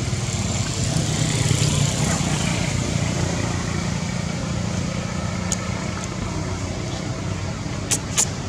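Steady low rumble of a motor vehicle's engine, with two sharp clicks near the end.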